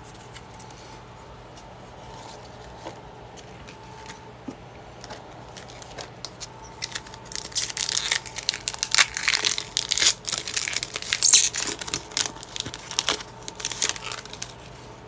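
Foil Pokémon booster pack wrapper being torn open and crinkled in the hands: a dense run of crackling that starts about halfway through and lasts around seven seconds.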